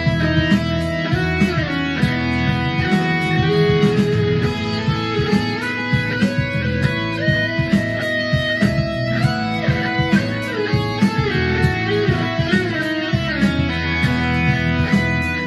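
Westfield E1000 ST Strat-type electric guitar playing a melodic lead line through an amp: single held notes that step and slide in pitch, over a steady rhythmic backing.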